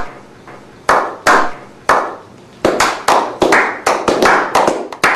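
Slow clap: single hand claps about a second apart at first, quickening halfway through as more people join in, each clap with a short echoing tail.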